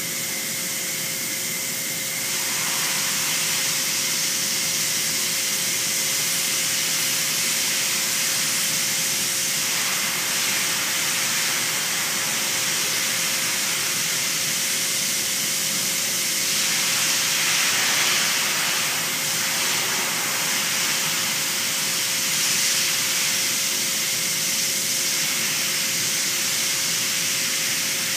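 Steady hiss of air escaping from a motorcycle tire while it is handled. The hiss grows louder about two seconds in and swells again a little past halfway, over a faint steady hum.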